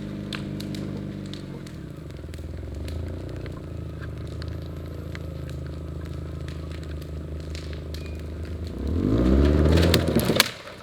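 Toyota Yaris engine under load, pulling on a rope tied to a building. The revs ease down and hold steady, then climb and get louder near the end before the sound cuts off abruptly. Scattered small crackles run through it.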